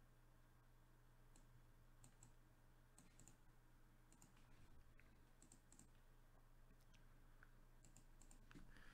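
Near silence with faint, irregular clicks of a computer keyboard and mouse.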